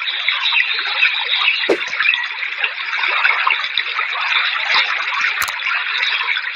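Steady rushing, water-like noise, with two light knocks, one about two seconds in and one late on.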